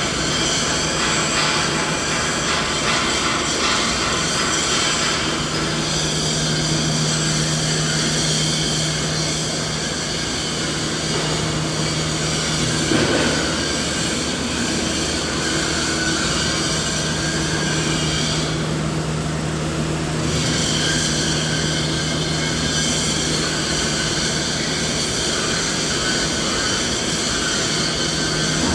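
Steady mechanical drone of running machinery: a low hum with several high, whining tones over a continuous rushing noise. The high tones fade for a couple of seconds about two-thirds of the way through.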